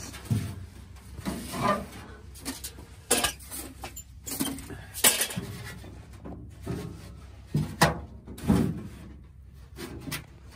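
Sheet-steel tent wood stove being handled and set in place: irregular metal clunks and knocks, with a few sharper ones through the middle.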